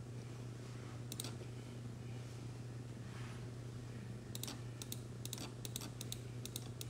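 Computer mouse clicking: a pair of clicks about a second in, then a quick run of clicks from about four seconds in, over a steady low hum.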